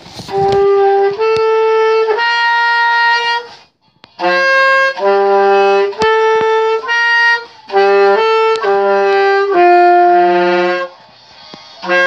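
Saxophone playing a slow melody of held notes, with a short break about four seconds in, stopping shortly before the end.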